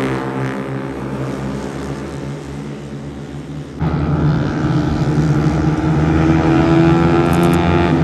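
Racing motorcycle engines running at high revs, an even droning note that fades away over the first few seconds. Just before the halfway point the sound jumps abruptly to a louder, closer engine drone that holds high and climbs slightly toward the end.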